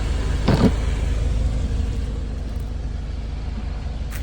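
Jeep engine idling steadily with a low rumble. A brief louder sound comes about half a second in, and a short click comes near the end.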